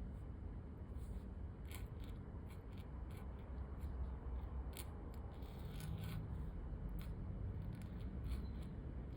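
Scratchy calligraphy pen nib scraping across paper in short, irregular strokes, over a steady low rumble.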